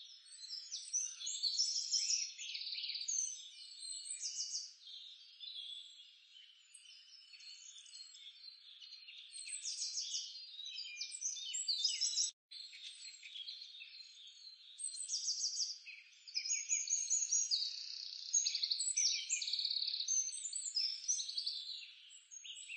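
A dense chorus of small calling animals, many high chirps and fast trills overlapping, birds among them, with a brief break about halfway through.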